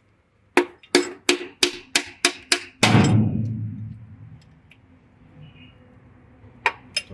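Quick series of sharp knocks on a metal cover plate of a Bharat Benz 1214 diesel's cylinder head as it is worked free, about three a second, ending in a heavier thud with a low rumble that dies away. Two more sharp clicks near the end.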